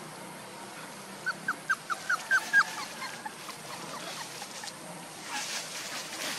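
One-month-old puppies squeaking while play-fighting: a quick run of about seven short, high, falling squeaks, each louder than the last, about a second in. A scuffling noise follows near the end.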